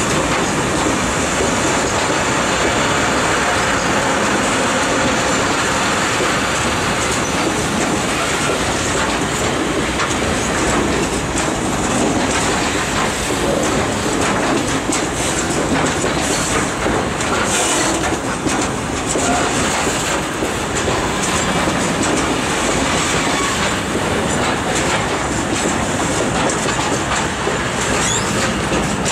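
Freight train of open steel coal wagons rolling past, a steady rumble and clatter of wagon wheels on the rails, with a brief high squeal about 17 seconds in.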